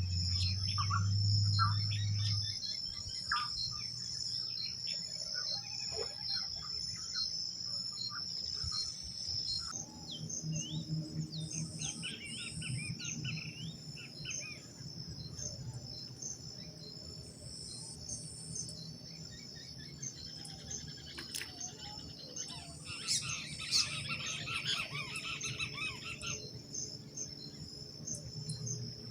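Birds chirping and calling at dawn over a steady, high, pulsing insect trill. The birdsong thickens into a busy flurry of calls near the end.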